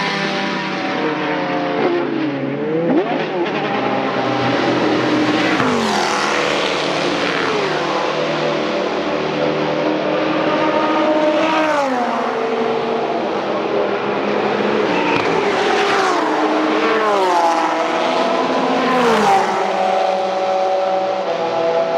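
Historic racing car engines at high revs, several cars going by in turn, with the engine note dropping sharply in pitch about five times.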